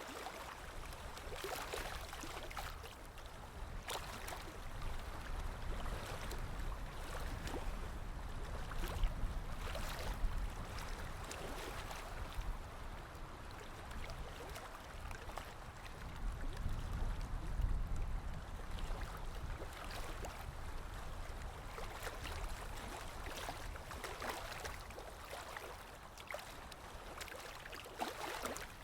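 Ocean water lapping: small waves sloshing and splashing without pause. It swells louder twice, about a third of the way in and again a little past halfway.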